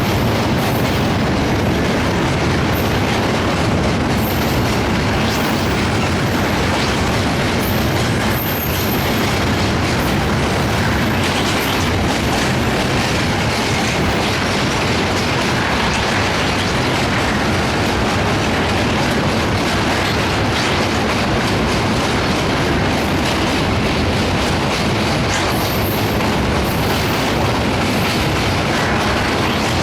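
Passenger train coaches rolling over a rail bridge, a steady, loud rumble and clatter of steel wheels on the rails.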